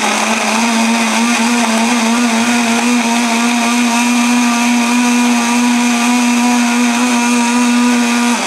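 Philips Walita countertop blender running at a steady speed, liquidising papaya, oats and chia seeds in water; the motor hum holds one pitch throughout, then winds down as it is switched off at the very end.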